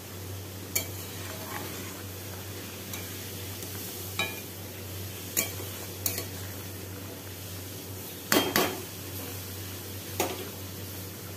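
Metal ladle stirring and knocking against an iron wok of boiling water with potatoes and flour dumplings: about seven short clinks scattered through, the loudest a quick pair about eight seconds in, over the steady hiss of the boiling pot.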